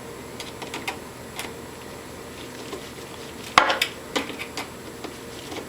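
Light clicks and taps of small 3D-printed plastic finger parts being handled and fitted together, with a sharper clack about three and a half seconds in.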